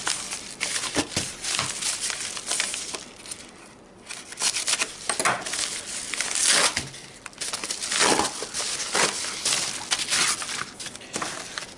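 Padded paper mailer envelope being torn open by hand: irregular bursts of crinkling and ripping paper, with a short quieter pause partway through.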